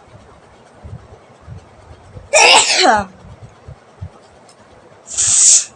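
A woman sneezing twice, loud and sharp: a voiced sneeze with a falling cry about two and a half seconds in, then a breathy, hissing sneeze near the end. The sneezes are set off by a strip of jackfruit leaf pushed into her nostril.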